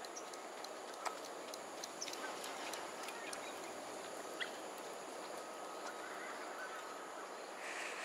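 Smooth-coated otters splashing in shallow water while feeding on a fish, with many short high-pitched calls and clicks, busiest in the first half.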